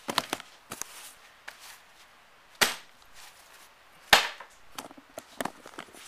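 A few sharp knocks and clicks of objects being handled and set down, the two loudest about two and a half and four seconds in.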